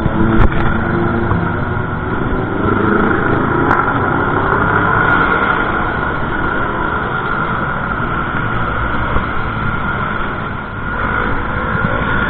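Steady wind rush on the microphone of a camera on a moving bicycle, with street traffic underneath.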